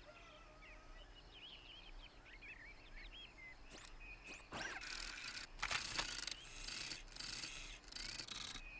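Faint bird chirps, then from about four seconds in a run of short whirring and clicking mechanical movement sounds from a small cartoon robot as it moves.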